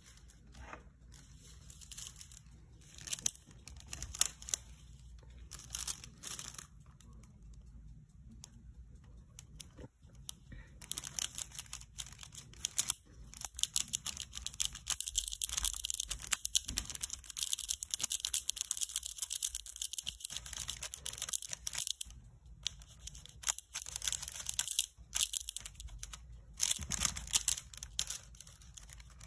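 Nail-art transfer foil with a snakeskin print crinkling and crackling as it is pressed onto a gel nail and peeled away. There are light crackles at first, then a long stretch of dense crinkling from about 11 to 22 seconds in, and another burst near the end.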